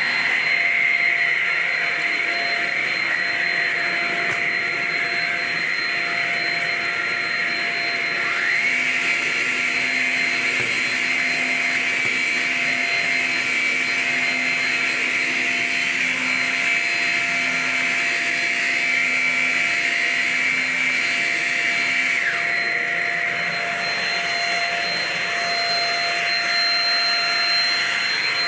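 Shark Rocket self-cleaning stick vacuum running with a steady motor whine. Its pitch rises about eight seconds in, with a lower hum added, and drops back about twenty-two seconds in.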